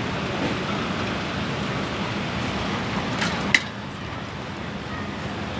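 Steady rumble of distant road traffic, with one sharp click about three and a half seconds in, after which the background is a little quieter.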